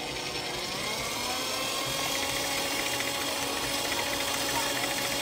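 Arno Planetária electric stand mixer running, beating egg whites with brown sugar for a sponge-cake batter. Its motor whine rises in pitch over the first couple of seconds as it speeds up, then holds steady.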